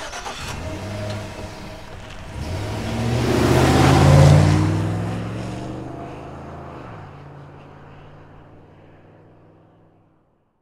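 Cinematic logo-intro sound design: a whooshing swell over low sustained drone tones. It builds to a peak about four seconds in, then fades away near the end.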